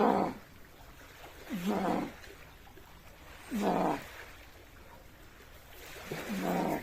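A man's loud grunts of effort during a hard workout, one about every two seconds, four in all, each lasting about half a second.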